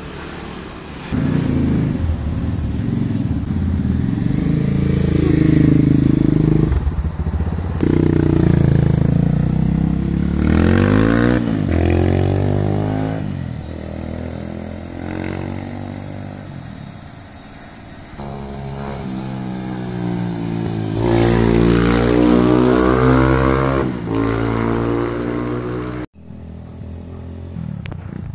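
Rusi KRY 200 dirt bike engine running and being ridden, revving up and easing off several times so its pitch rises and falls. Near the end the sound cuts off suddenly and comes back quieter.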